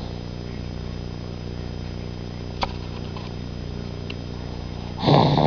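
A baby snoring: one loud snore near the end over a steady hum, with a faint click a little past halfway.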